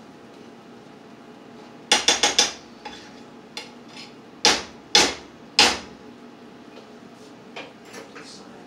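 A cooking utensil knocking against a frying pan: a quick run of four knocks about two seconds in, then three sharper knocks about half a second apart, with a few lighter ticks after.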